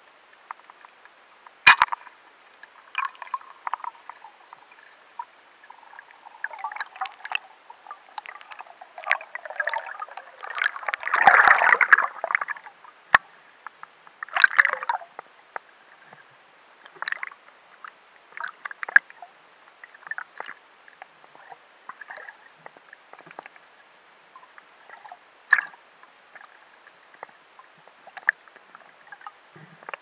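Underwater sound picked up through a diving camera's housing: scattered sharp clicks and crackles, with a louder rush of water noise about eleven seconds in and a shorter one a few seconds later.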